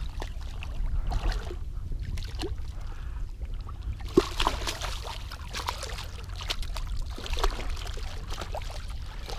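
Water splashing and lapping beside a small boat as a hooked redfish is worked in close, with scattered small clicks and splashes over a steady low rumble.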